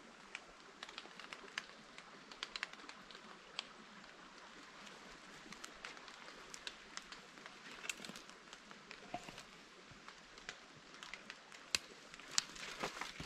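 Footsteps through forest undergrowth, with twigs and fallen branches crackling and snapping underfoot in irregular clicks over a faint steady hiss, louder near the end.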